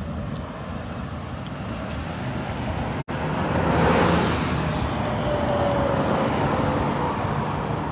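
Outdoor road traffic noise, with a steady rush and a brief cut-out about three seconds in. A vehicle passes, louder about four seconds in, its pitch dropping as it goes by.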